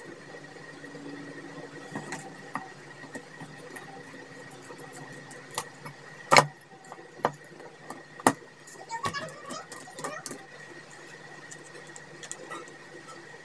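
Hands handling the plastic LED bulb housing and a small socket with its wires: scattered light clicks and rustles, with sharp knocks a little past six seconds and again past eight seconds, over a steady electric fan hum.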